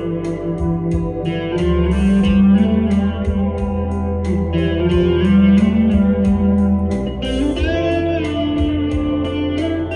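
Korean-made Epiphone Les Paul Custom electric guitar being played: held, sustained notes, with a note bent upward a little past halfway through.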